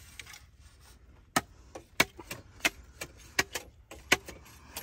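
A run of sharp knocks and clicks, about two a second and unevenly spaced, starting about a second and a half in.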